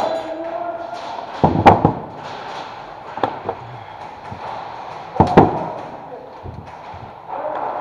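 A few heavy knocks and thumps against plywood: a loud one about a second and a half in, a sharp click about three seconds in, and another loud knock about five seconds in.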